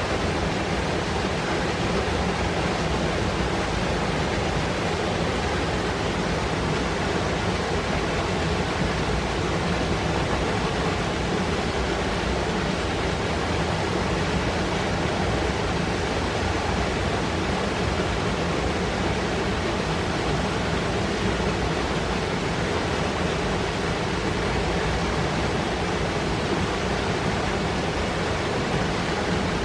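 Fast mountain stream rushing and foaming over rocks: a steady, dense rush of white water that does not let up.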